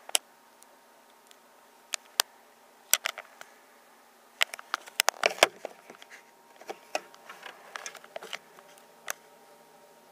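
Irregular sharp clicks and taps, a dense cluster of them about halfway through, over a faint steady hum.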